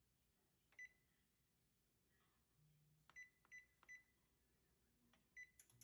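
GE wall oven's electronic control panel beeping faintly at each key press: five short, high beeps of the same pitch, one about a second in, three in quick succession around the middle and one near the end, as Bake and a temperature are keyed in. A couple of faint clicks come near the end.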